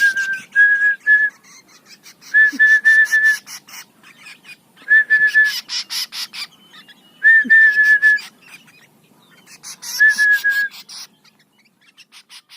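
Short whistled notes, each held at one pitch, in groups of three to five that repeat about every two and a half seconds, with scattered light clicks between them.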